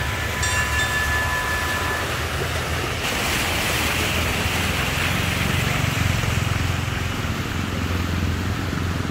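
Motorbikes riding through flood water on a street: engines humming low under the hiss and splash of water thrown up by the wheels. The splashing swells about three to six seconds in as a motorbike passes close.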